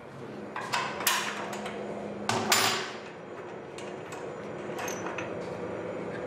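Metal fittings of a lighthouse lamp apparatus being handled: three sharp knocks, the loudest about two and a half seconds in, over a faint steady low hum.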